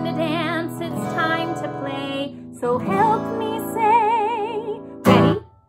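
A woman singing long notes with a wide vibrato, accompanied by acoustic guitar. About five seconds in comes one short, loud sung note.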